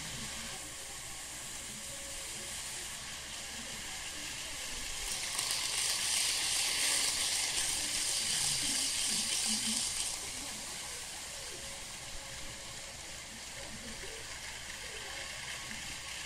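N-scale model train running on its track, a steady whirring hiss that swells for about five seconds midway as it passes close, then settles back.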